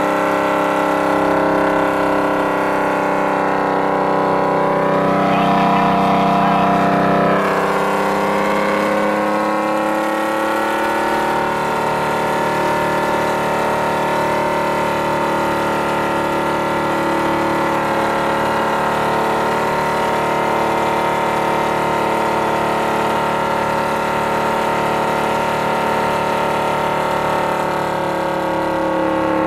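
Detroit Diesel 6-71 two-stroke inline-six in a Ford L9000 truck, pulling under load up a long hill and heard from inside the cab as a steady, many-toned engine drone. About six seconds in, a brief rush of noise comes and the engine note drops, then it climbs slowly and holds.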